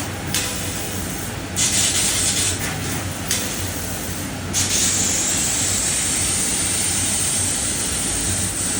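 CNC fiber laser cutting machine at work: a steady machine rumble with the high hiss of the assist gas switching on and off in bursts of about a second, then hissing steadily for the last four seconds.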